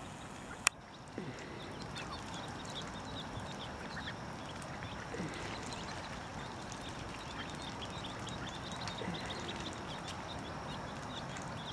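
Mallard ducklings peeping: many short, high peeps in quick succession, with three low falling calls mixed in. A single sharp click a little under a second in.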